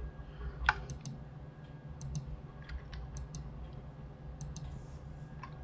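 Scattered clicks of a computer keyboard and mouse, a dozen or so, several in quick pairs, the sharpest about a second in, over a low steady hum.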